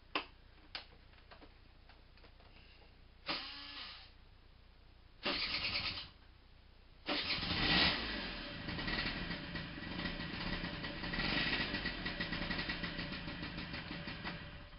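Honda Vision 50cc moped's small two-stroke engine starting: a couple of switch clicks, two short bursts of cranking, then it catches about seven seconds in. It runs and is revved a couple of times, then cuts out near the end.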